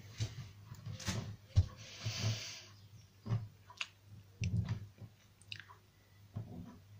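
A person chewing and smacking the lips in short, irregular bouts, with small clicks and a brief hiss about two seconds in.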